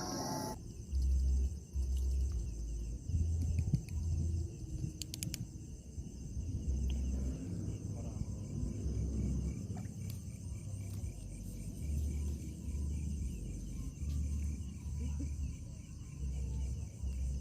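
Wind buffeting the microphone in irregular low gusts over a steady, pulsing chirr of insects. A short stretch of music cuts off about half a second in.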